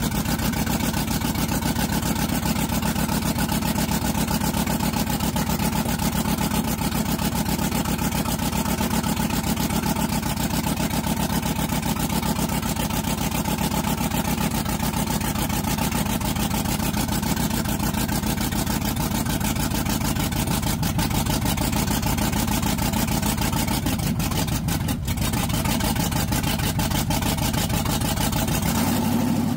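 LS V8 swapped into a squarebody Chevy truck, running steadily on its first start with a couple of cylinders not firing, which the owner puts down to rust-fouled injectors on the right bank and fuel pressure that is too high.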